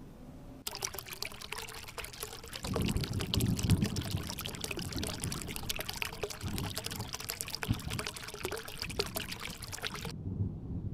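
Rushing, splashing water, a dense crackling patter with a deep rumble joining about three seconds in. It cuts off suddenly near the end.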